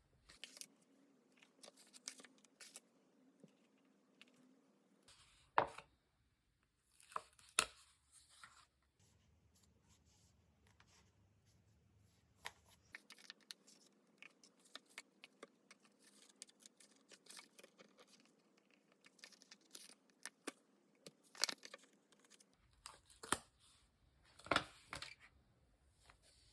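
Paper crafting materials being handled for journal decorating: many small rustles and clicks, with a few louder tearing or scissor-cutting sounds.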